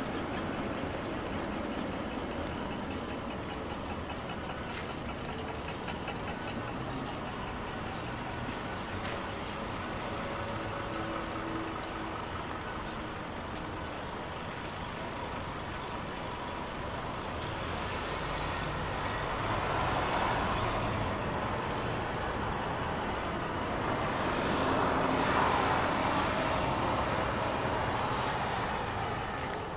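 City traffic with buses. A steady traffic din swells twice in the second half as city buses pass close by.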